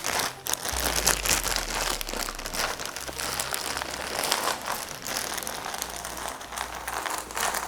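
Bag of jigsaw puzzle pieces crinkling steadily as it is opened and handled.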